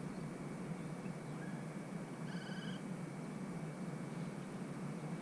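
A bird gives one short, buzzy trilled call about two seconds in, with a couple of faint chirps just before it, over steady outdoor background noise.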